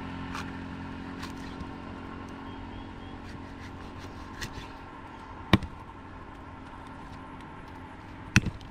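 A steady motor hum runs underneath. Over it come sharp knocks of a heavy knife chopping fish on a cutting block: one about two-thirds through, then a quick double knock near the end.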